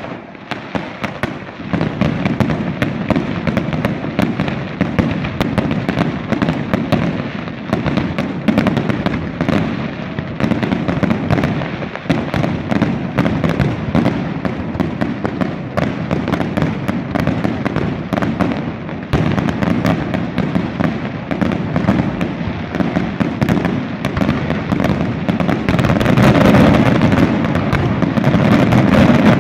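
Fireworks display bursting in a dense, continuous barrage: rapid cracks and bangs over a low rumble, growing louder about 26 seconds in.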